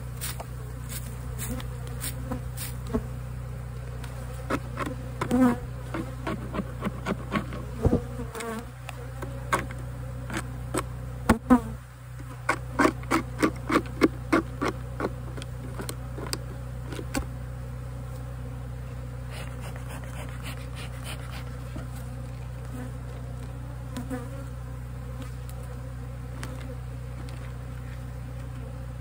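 Honeybees humming steadily around an open hive, with a run of quick brush strokes as bees are swept off a frame. The strokes come thickest in the middle, at about three or four a second, and stop about 17 seconds in, leaving just the hum.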